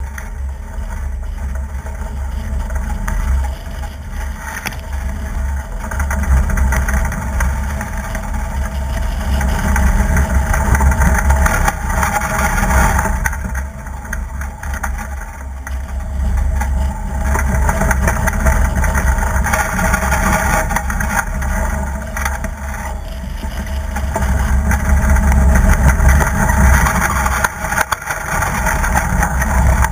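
Strong wind buffeting a deck-mounted camera's microphone, with water rushing and splashing along the hull of an Albin Express racing sailboat sailing hard in heavy wind. The rumble and rush swell and fade with the gusts, loudest about ten seconds in and again near the end.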